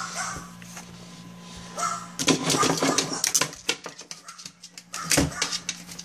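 A dog's paws scratching and batting at a laptop screen and desk: a quick, uneven flurry of scratchy taps starting about two seconds in, and another burst near the end, over a steady low hum.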